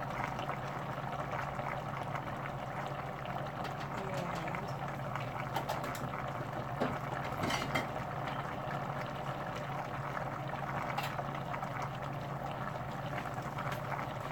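Steady sizzling of a pan of chicken pieces cooking on an electric stove, over a low steady hum, with a few faint knocks about halfway through.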